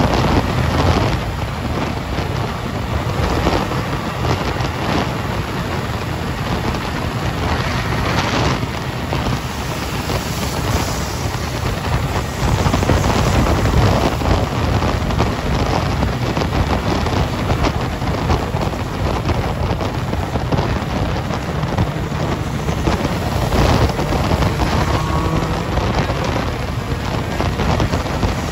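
Steady wind rush buffeting the microphone of a motorcycle riding at highway speed, mixed with the bike's engine and road noise.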